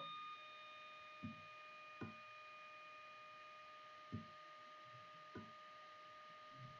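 Faint steady electronic test tone from an oscillator made of a few pure pitches, heard through speakers, as its harmonics are switched off toward a plain sine wave; one upper partial drops out about four seconds in. Five soft clicks at irregular intervals.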